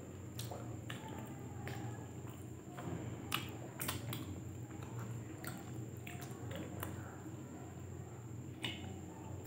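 Two people chewing steamed momos (dumplings), with scattered wet lip smacks and mouth clicks, the sharpest a little over three seconds in, over a steady low hum.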